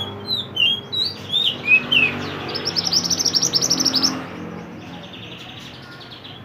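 A mantenan (pied bushchat) singing. It starts with a few separate, gliding whistled notes, then breaks into a fast run of about ten bright chirps a second, which fades into a softer trill near the end. A low rumble runs underneath.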